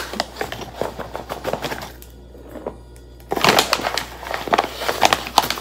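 Paper flour bag rustling and crinkling as a measuring cup is worked into it to scoop out flour. It comes in two stretches, with a pause of about a second in the middle.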